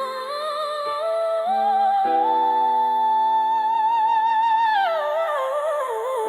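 Slow R&B ballad music: a wordless sung or hummed vocal line holds a long wavering note and falls away near the end, over sustained chords.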